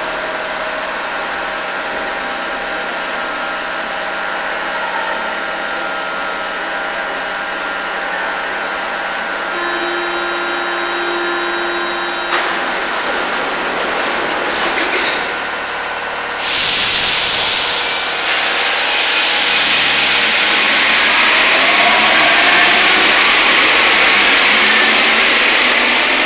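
Paris Métro train at the platform, a steady electrical hum with a door warning tone about ten seconds in and the doors knocking shut. A sudden loud hiss comes about sixteen seconds in, then the train pulls out with a rising motor whine and rushing noise.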